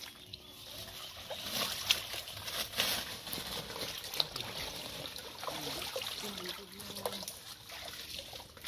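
Water sloshing and splashing as a person wades through shallow swamp water, with scattered sharp clicks and splashes.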